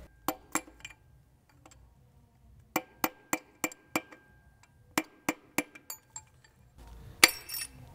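Sharp metal clicks and clinks, in short runs of about three a second with a louder one near the end, from a hand tool working the connecting-rod bolts of a bare, water-damaged V8 engine block.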